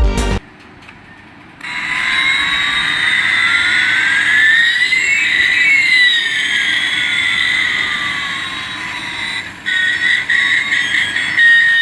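Electronic toy sound effect from a battery toy's sound chip: a steady synthetic tone with one whine rising and another falling across it, like an imitation jet engine, then choppy electronic notes near the end.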